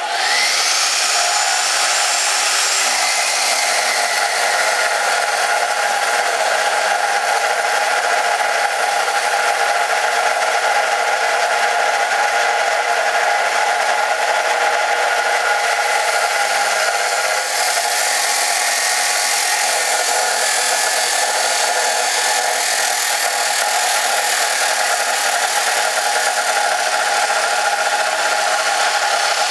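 Cutoff chop saw starting up with a brief rising whine, then running steadily as it cuts through quarter-inch-wall steel square tubing.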